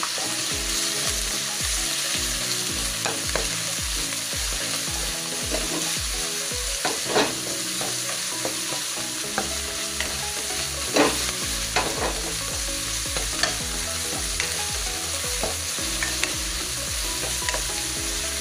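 Sliced onions and chicken sizzling in hot oil in a wok over high heat, stirred with a spatula that scrapes and clacks against the pan now and then, a few clacks standing out louder.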